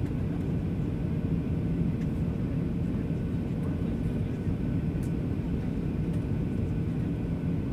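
Steady low rumble of a Boeing 737-800 in flight, its engines and the airflow over the fuselage heard from the passenger cabin during the descent to land, with a faint steady hum above the rumble.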